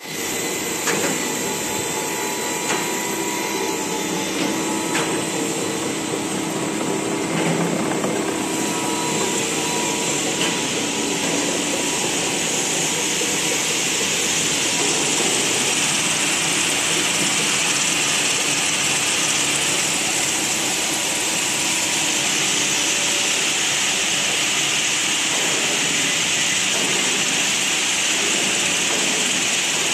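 Biodegradable granule extrusion line running: steady motor hum and whine with a few light clicks in the first five seconds. From about eight seconds in, a louder steady rushing hiss takes over, as from the cooling blowers over the conveyor.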